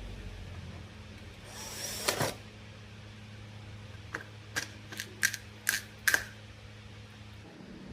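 A brief scraping rustle, then six sharp clicks of hard small objects over about two seconds, over a steady low electrical hum that stops near the end.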